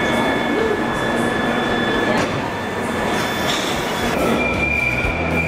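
London Underground tube train in a deep-level station: a loud, steady rush of running noise with high steady whining tones over it. A new, higher tone sets in about four seconds in.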